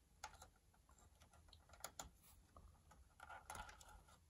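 Faint, scattered plastic clicks and taps of fingers handling a projector's circuit board and its small wire connectors, with a quick flurry of clicks about three and a half seconds in.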